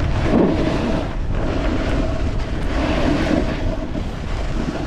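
Wind buffeting the microphone with a steady low rumble while snowboarding downhill, mixed with the board's base hissing over wet snow.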